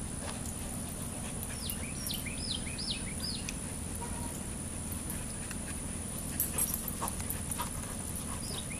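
Dogs panting close by, over a steady low rumble. About two seconds in comes a quick run of five short, high, falling squeaks.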